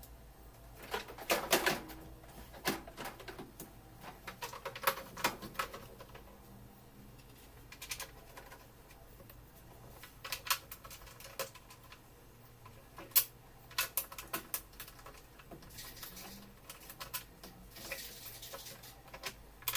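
Irregular clicks, taps and light knocks of hand work on washing-machine parts, with a short hissing noise about sixteen to nineteen seconds in.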